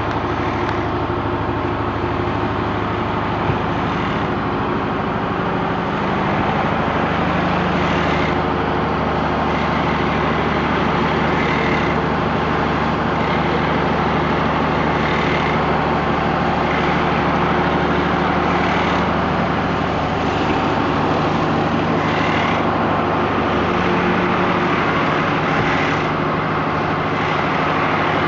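Machinery of a containerised automatic bagging plant running with a steady low drone, with a short repeating sound about every three and a half seconds.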